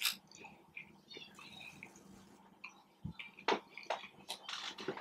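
Close-miked chewing of a mouthful of steak burrito: soft wet mouth clicks and smacks at irregular intervals, a little louder past the middle.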